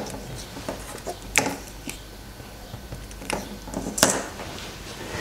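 Multimeter test leads and probes being handled on a wooden bench: a few light clicks and knocks as the probe tips are brought together.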